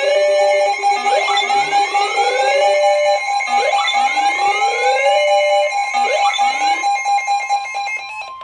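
Several electronic alarm sounds layered together: a siren whoop that sweeps upward in pitch about once every second and a half, over steady alarm tones. A single steady tone near 1 kHz runs under it all, and the sweeps stop near the end, leaving mostly that steady tone.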